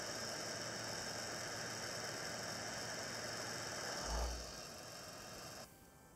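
Heat gun blowing hot air onto the CPU's pin pads, a steady fan-and-airflow hiss, melting solder to seat a replacement pin. A short low thump comes about four seconds in, then the noise falls lower and cuts off abruptly near the end.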